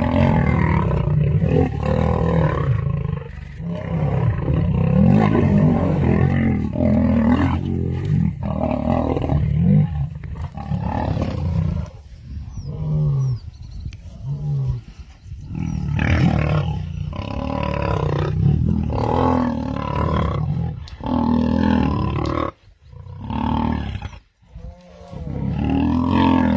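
Male lions roaring in a fight: three males attacking a lone young male, the roars coming in repeated loud bouts with short lulls near the end.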